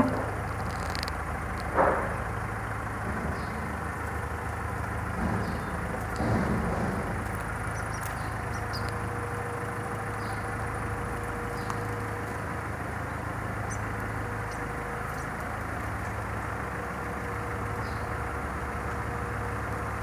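A steady low engine hum, like a vehicle idling, with a few brief knocks in the first few seconds.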